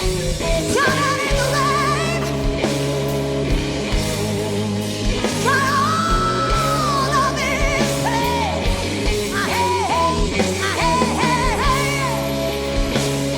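Live blues-rock band with a woman's powerful lead vocal, sung with wide vibrato over a steady bass and guitar. She holds one long note partway through.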